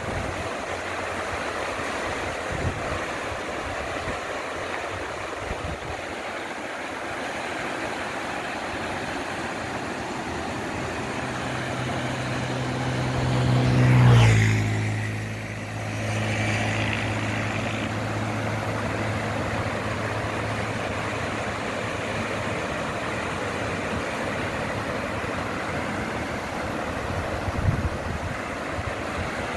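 Floodwater rushing down a swollen creek, a steady noise. About halfway through, a motor vehicle approaches on the road, passes close by with its engine note dropping in pitch, and fades away.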